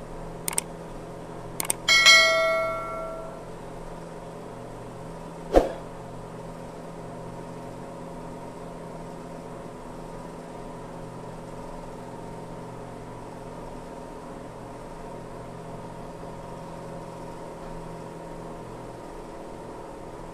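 A light click or two, then a metallic clank about two seconds in that rings on and fades over a second or so, like a metal tool or part struck on the compressor; a single sharp knock follows a few seconds later. Under it a steady machine hum runs throughout.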